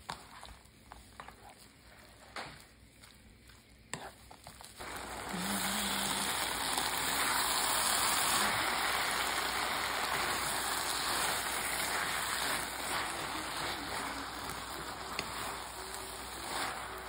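Kimchi and canned tuna in its oil stir-frying in a pan and being turned with a wooden spoon. A few light taps at first, then a steady sizzle sets in about five seconds in as the pan heats up, and it keeps going.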